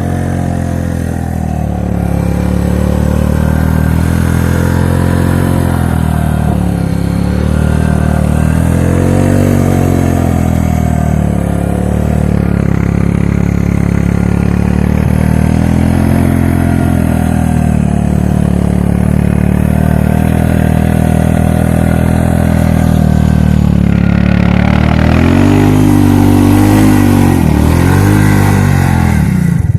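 Suzuki King Quad ATV's single-cylinder four-stroke engine running while being ridden, its pitch rising and falling repeatedly with the throttle. It gets busier and harsher in the last few seconds.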